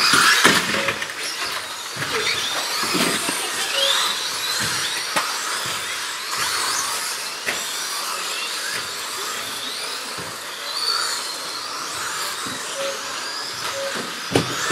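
Several electric RC 2WD buggies racing: high motor whines that rise and fall in pitch as they speed up and slow down, over a steady hiss of tyres on the track, with a few sharp knocks.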